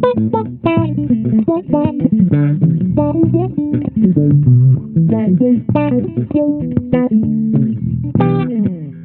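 Cunningham RLJ6 headless electric bass playing a busy run of plucked notes, ending in a slide down in pitch near the end.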